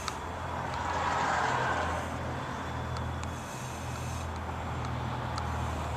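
Motor-vehicle noise: a low steady hum, with a swell of road-like noise rising about half a second in and fading by about two and a half seconds.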